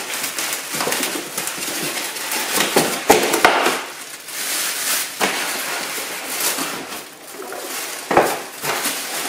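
Plastic wrapping around an espresso machine rustling and crinkling as it is handled and pulled out of styrofoam packing, with a few sharp knocks, two close together about three seconds in and one about eight seconds in.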